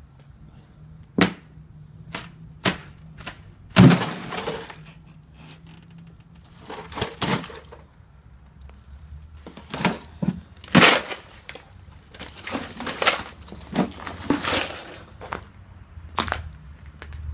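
Thin sheet ice over shallow water being broken: a run of sharp cracks, the loudest about four seconds in, then longer bouts of crackling and crunching as more of the ice breaks up, with a last crack near the end.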